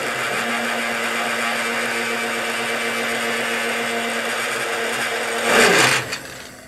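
Electric blade grinder running steadily, its blades spinning through a jar of mineral pigment powders to blend them into one foundation colour. It swells briefly just before it cuts off about six seconds in.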